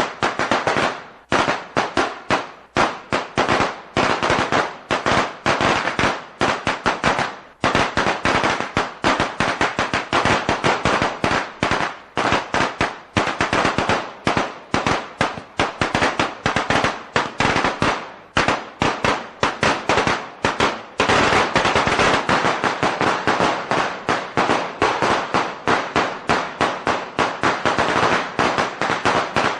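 A string of Chinese firecrackers (biānpào) going off in a rapid, unbroken chain of sharp bangs, crowding into an almost continuous crackle about two-thirds of the way through.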